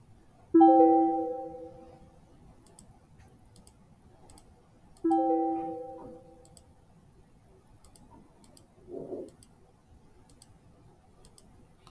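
A bright plucked, chord-like chime sounds twice, about four and a half seconds apart, each note dying away over a second or so. Faint clicks come and go between them.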